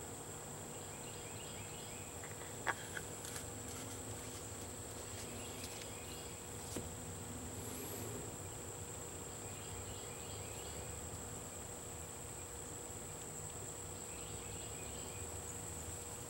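Quiet background with a steady high-pitched insect drone and faint recurring chirps. Twice, about three and seven seconds in, there is a small faint click of the tiny roll pin and metal parts being handled at the outboard's driveshaft.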